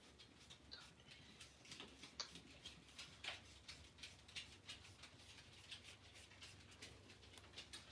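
Faint, irregular light ticks and scratches of a paintbrush working over watercolor paper, spreading wet paint so that it mixes with the paint below.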